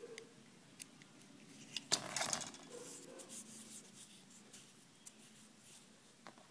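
Craft knife blade cutting and scraping a champagne cork: short scratches and light clicks, loudest in a brief rasp about two seconds in.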